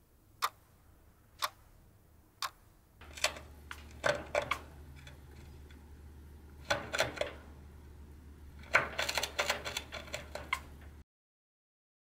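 Short sharp clicks and taps from a chinchilla moving about its cage. They come about one a second at first, then in quick clusters, over a faint low hum.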